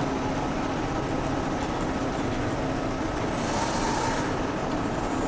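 Steady hum and noise of assembly-line machinery, with a brief hiss about three and a half seconds in.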